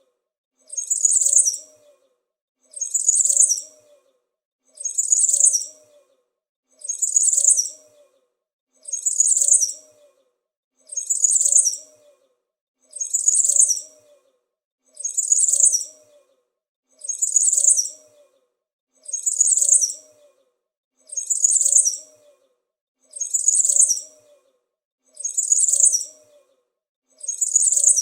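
A small bird's high-pitched chirping call, the same short burst repeated evenly about every two seconds, a looped sound-effect sample.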